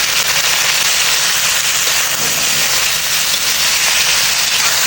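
Chicken pieces sizzling steadily in hot oil with sautéed garlic in a frying pan, a loud, even hiss.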